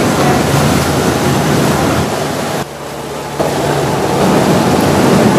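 Riverboat under way: a steady engine drone under the rush of its churning wake, with wind buffeting the microphone. The noise drops for under a second about halfway through, then returns.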